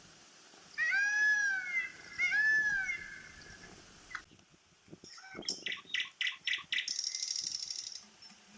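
An animal cries out twice, each cry rising then falling in pitch. A few seconds later comes a quick run of high chirping clicks, ending in a buzzy high trill.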